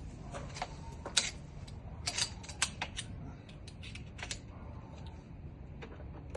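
Irregular small, sharp metal clicks and scrapes of a tool working inside a drilled-out Kwikset smart lock cylinder, thickest in the first four seconds.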